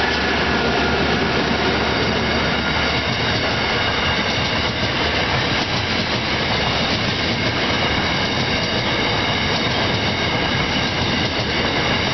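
Diesel-hauled freight train passing at close range: a locomotive's engine hum in the first few seconds, then grain hopper wagons rolling by with steady wheel-on-rail noise and a high squeal from the wheels.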